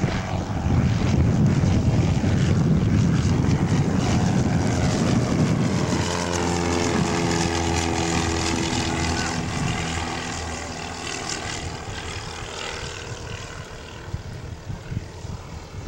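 Piper Cherokee light single-engine propeller plane climbing out at takeoff power overhead. Its engine and propeller are loud at first, then settle into a steady drone that fades as the plane flies away.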